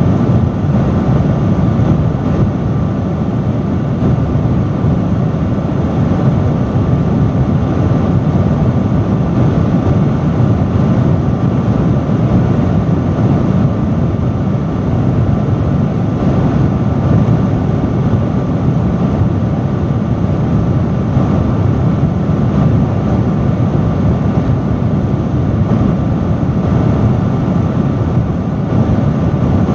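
Loud industrial fan running steadily: a constant rush of moving air, heaviest in the low range, with a faint steady hum.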